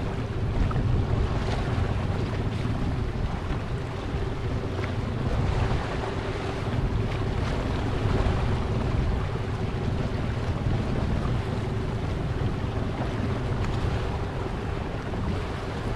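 Boat motor running steadily at slow trolling speed, with a steady hum, water washing past the hull and wind buffeting the microphone.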